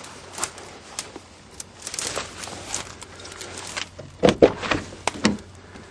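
A vehicle door being worked open: scattered clicks and knocks, then several louder clunks about four to five seconds in.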